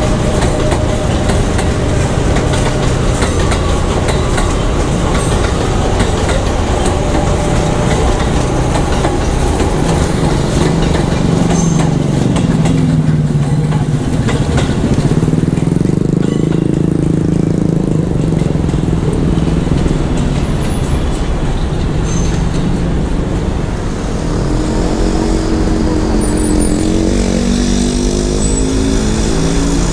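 KRL commuter electric train running past close by: a steady rumble of wheels on rail, with a motor whine that glides down and then up in pitch in the middle. Another whine rises in pitch near the end.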